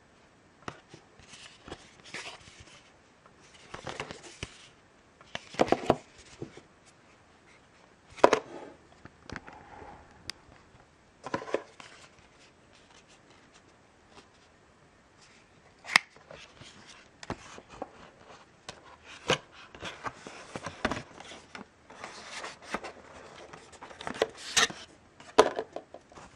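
Hands handling stiff white cardboard packaging from an iPad mini box, the documentation sleeve and inner tray: irregular rubbing and scraping of card with several sharp taps and clicks, in bursts with short pauses between.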